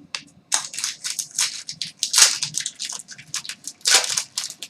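Crinkly packaging, a trading-card pack wrapper, being handled and torn open: a quick, irregular run of crackling rustles.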